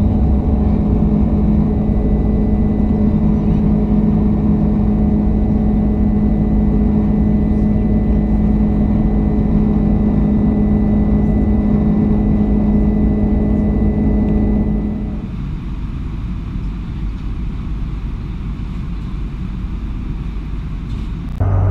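Airbus A310-300 jet engines heard inside the cabin from a window seat: a steady drone with a strong low hum and a faint high whine. About fifteen seconds in it drops to a quieter, even cabin rush without the tones.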